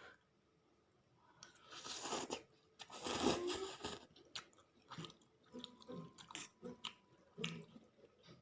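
A person chewing and eating a mouthful of Yippee instant noodles, with two louder bursts of mouth noise early on followed by a run of short chewing sounds.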